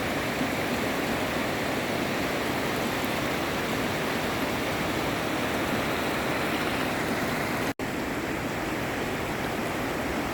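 Steady rush of water from the Jacques-Cartier River, broken by a momentary cut-out about three-quarters of the way through.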